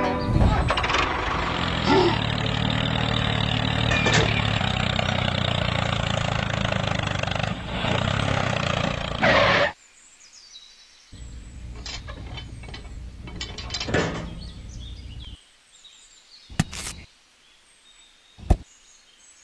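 A toy tractor's small electric motor and gears running steadily while its cultivator tines scrape through sand; the sound cuts off suddenly about halfway through. A quieter motor hum follows for a few seconds, then a couple of short scuffs or clicks near the end.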